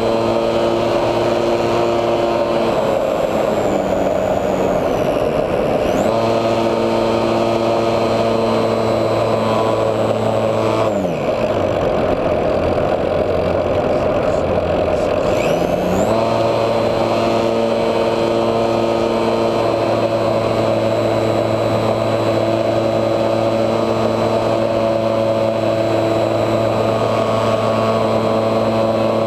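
HobbyZone Super Cub RC plane's electric motor and propeller whining steadily, heard from a camera on the plane, with air rushing past. About eleven seconds in, the motor's pitch falls away as the throttle is cut for a dive, and about sixteen seconds in it climbs back up as power returns.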